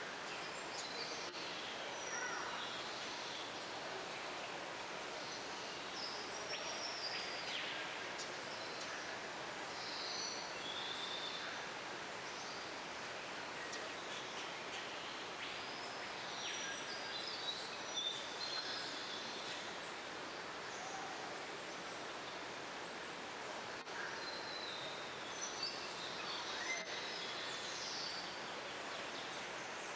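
Many birds calling and chirping, short scattered calls, some sliding down in pitch, over a steady hiss of background noise.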